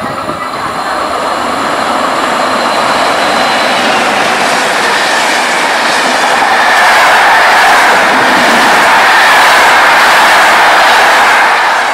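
Passenger train running through a station at speed: a rush of wheels on rails and air that grows louder, is loudest over the second half, and drops away just at the end.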